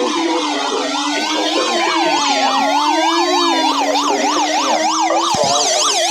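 Several electronic emergency sirens sounding together, slow wails and fast yelps overlapping over a low steady tone. A faster yelp comes in about four seconds in.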